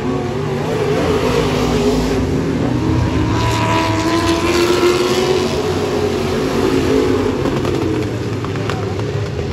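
A pack of vintage dirt-track stock cars racing on a dirt oval. Several engines run at once, their notes rising and falling as the cars pass, loudest about halfway through.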